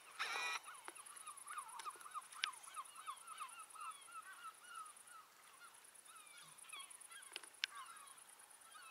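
A flock of geese honking, one loud honk at the start followed by many short overlapping calls that thin out after about five seconds.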